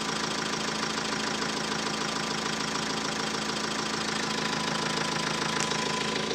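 Renault Trafic engine idling with a steady, rapid knock from the engine area. The knock appeared once the engine was hot, and the owner suspects an injector but is not sure.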